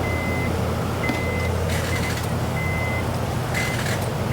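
Electronic beeping at one high pitch, sounding on and off in uneven lengths, over a steady low hum, with two brief rustling bursts about two and three and a half seconds in.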